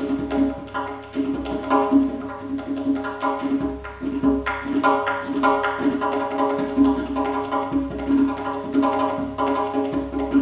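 Solo tombak (Persian goblet drum) played with the fingers: a fast, unbroken stream of strokes and rolls over the drum's ringing tone.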